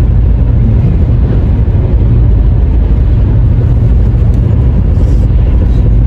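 Steady low rumble of a car driving at road speed, with road and engine noise heard from inside the cabin.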